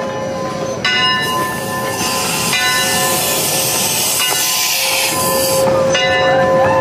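Steam locomotive letting off a loud hiss of steam for about three seconds in the middle. A steady tone with overtones runs underneath throughout.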